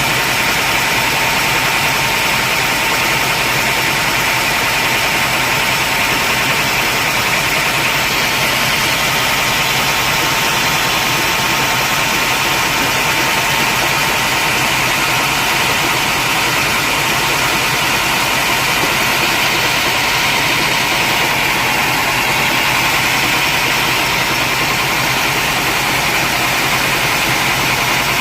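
Sawmill machinery running steadily: a loud, even mechanical noise with a faint steady whine that fades away near the end.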